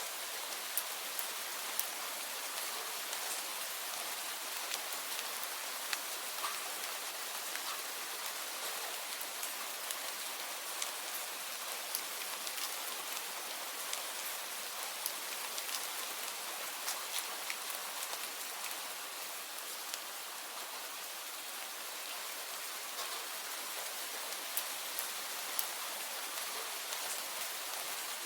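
Steady rainfall: an even hiss with many sharp, close drop ticks scattered through it.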